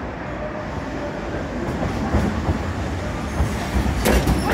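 Toyohashi Railway streetcar rolling in at low speed, its low rumble growing louder as it comes close. About four seconds in, the wheels give a few sharp clacks as they cross the track points.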